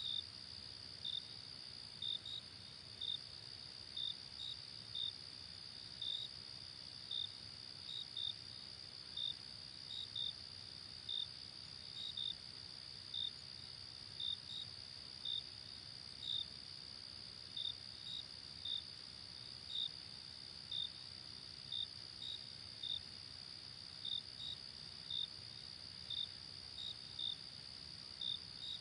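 Crickets chirping at night: short, high chirps come about once a second, sometimes in quick pairs, over a steady high-pitched trill from a chorus of other insects.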